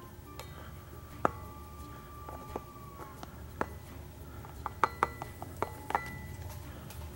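Sharp metallic clinks from a bare Suzuki Samurai 1.3L crankshaft being handled. One clink about a second in rings on for nearly two seconds, and a quick cluster of short ringing clinks follows a few seconds later.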